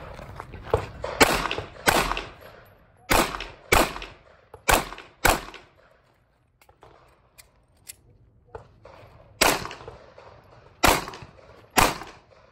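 Glock 43 9mm pistol shots in quick pairs, six in all, then a pause of about four seconds for a magazine change (the backup-gun division allows only six rounds per magazine), then three more shots.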